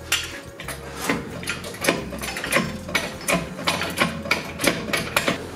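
Irregular sharp metal clicks and clanks of a hand tool working on a car's underbody during a suspension install, coming several a second at times.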